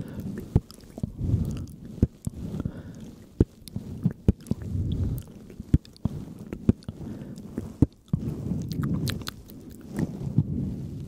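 Close-miked ASMR trigger sounds: soft, irregular squishing and rustling swells, with many sharp wet clicks scattered at uneven intervals.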